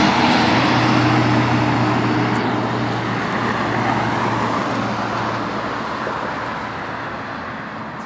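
A Shacman dump truck passing on the road, its diesel engine hum and tyre noise loud at first and fading away steadily. The engine hum dies out a little past halfway.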